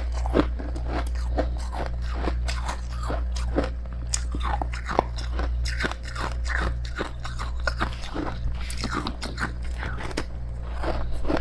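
Close-up biting and chewing of powdery freezer frost: a dense, irregular run of crisp crunches, with a steady low hum underneath.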